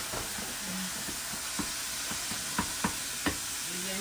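Ground meat sizzling in a hot frying pan with a steady hiss, and a few sharp knocks of the stirring utensil against the pan, mostly in the second half.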